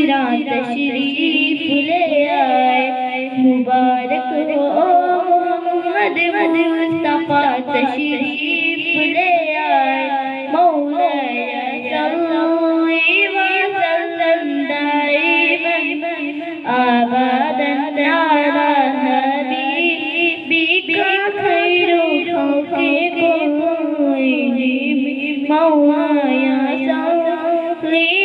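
A girl singing a naat, an Urdu devotional song in praise of the Prophet, solo in a slow melody with long gliding, ornamented notes and no break.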